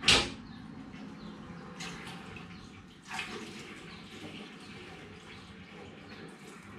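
Water pouring steadily from a tipped plastic bucket into a fermenter, with a sharp splash as the pour starts and a smaller one about three seconds in.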